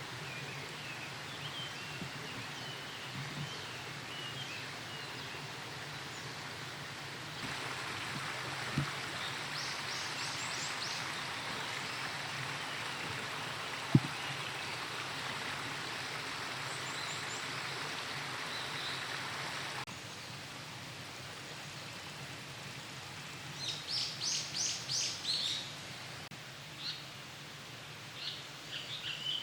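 Japanese paradise flycatcher and forest birdsong over a steady background hiss, with a clear run of about six quick high notes about three-quarters of the way through. A sharp knock sounds about halfway, and a smaller one before it.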